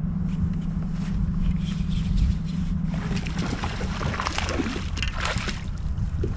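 Boat motor humming steadily over wind and water noise. The hum stops about three and a half seconds in, and scattered clicks and splashing follow.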